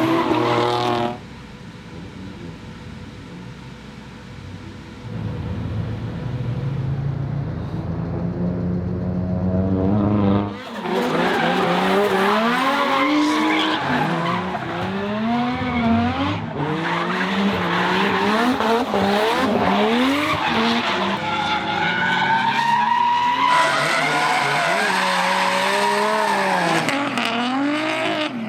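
Drift cars' engines revving hard with tyres squealing and skidding. The engine note rises steadily for a few seconds, then from about ten seconds in it swings up and down repeatedly as the cars are driven sideways.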